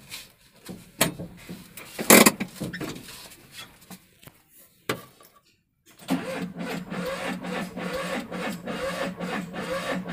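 Vehicle's starter motor cranking the engine in a steady rhythm for about five seconds, starting about six seconds in, without the engine catching: the battery is too weak to start it. Before that, a few clicks and knocks, the loudest about two seconds in.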